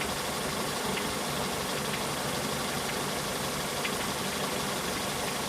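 Car engine idling with a knock from the crankshaft damper (harmonic balancer) pulley, a sign that the damper is failing, heard as faint sharp ticks every second or two over the steady running.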